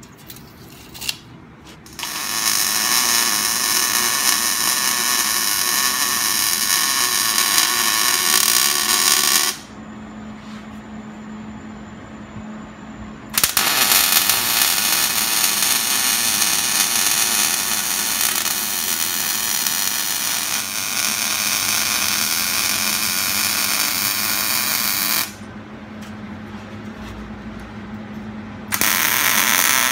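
MIG welding arc running on steel square tubing in three runs: a long one starting about two seconds in, a longer one from about thirteen seconds, and a third starting near the end. In the pauses between runs only a low steady hum remains.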